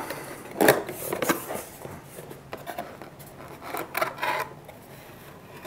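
Cardboard packaging of a Sony a7IV camera box being opened and handled by hand: cardboard rubbing and scraping in several short rustles, fainter near the end.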